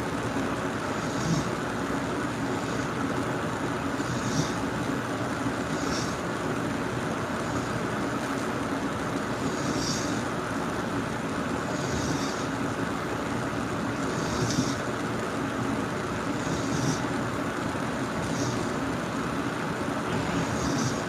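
A person snoring in a slow, regular rhythm, with a breath sound about every two seconds over a steady background noise.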